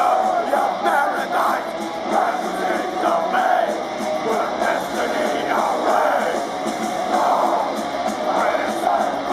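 Melodic death metal band playing live: distorted electric guitars, drums and shouted vocals. Heard from within the concert crowd, with little bass.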